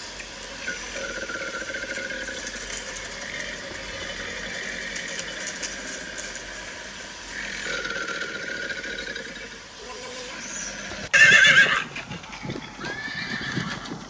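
A horse whinnying once, loudly and with a quavering pitch, about eleven seconds in. Before it there is a quieter steady sound with long held tones.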